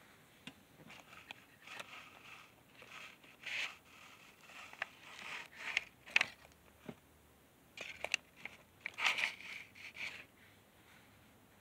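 Irregular rustling and scraping close to the microphone, with a few sharp clicks, coming and going through most of the clip: handling noise.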